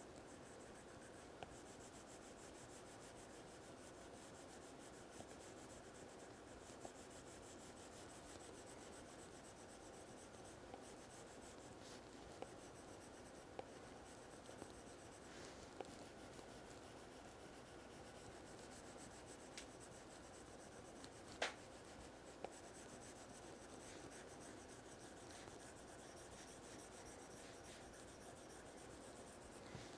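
Faint rubbing of an Apple Pencil tip shading back and forth across an iPad's glass screen, with scattered light taps and one louder click about twenty-one seconds in.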